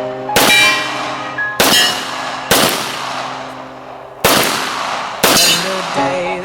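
Five single gunshots, one roughly every second with a longer gap midway, each trailing off in a short echo, over background music.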